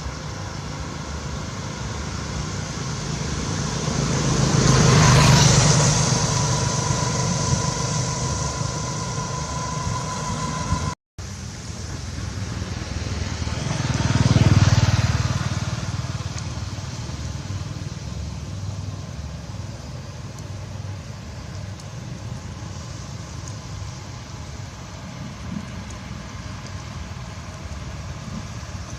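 Road traffic: two vehicles pass by, each swelling up and fading away, over a steady background hum. The sound cuts out for an instant about eleven seconds in.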